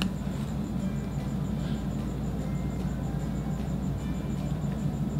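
Soft background music.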